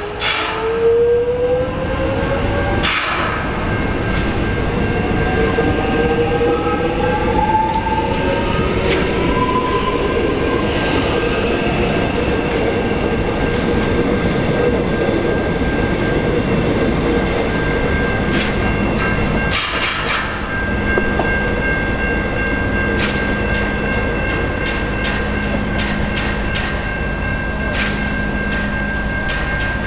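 Electric suburban train pulling away, its traction motors whining in a rising pitch as it gathers speed. After a break, an X'Trapolis electric train runs in with a steady hum, its wheels clicking over rail joints and points.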